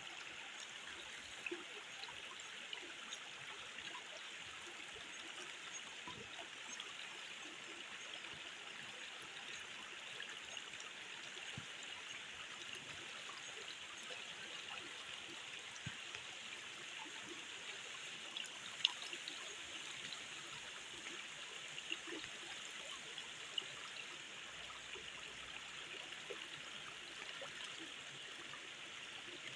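Shallow stream running over rock, a steady babbling rush, with a few small clicks and taps scattered through it, the sharpest about two-thirds of the way in.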